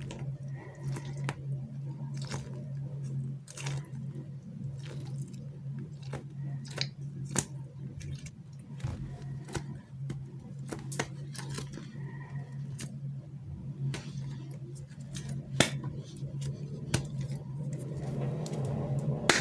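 Hands squeezing and tapping squishy anti-stress toys: irregular crackles and clicks over a steady low hum.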